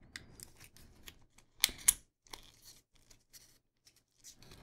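Small paperboard battery box being handled and slid open by hand: light scrapes and clicks of cardboard, with two sharp ticks a little under two seconds in.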